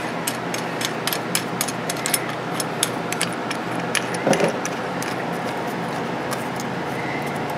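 Light metallic clicks and ticks of a nut and threaded steel rod being handled and screwed down into a 3D-printed plastic brace. The clicks come quickly and irregularly for the first few seconds, then thin out, over a low steady hum.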